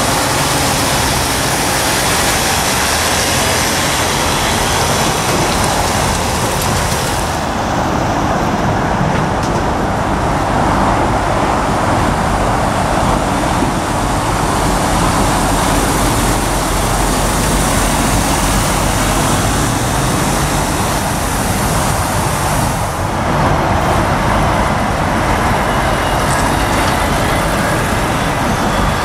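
Articulated lorries' diesel engines running as they drive slowly across a truck-stop yard, under a steady hiss of road noise. The background changes abruptly twice, about seven and about twenty-three seconds in.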